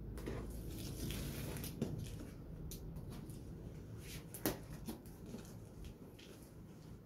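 Box cutter slitting the packing tape on a cardboard carton, then hands handling the cardboard box flaps, with rustling and scraping and a sharp click about four and a half seconds in.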